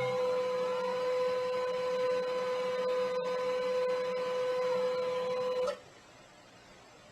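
A small electric motor running with a steady whine for about six seconds, then stopping abruptly.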